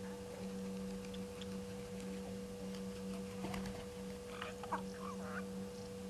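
Steady electrical hum made of two constant tones, one low and one a little higher, with a few faint, short animal chirps in the middle.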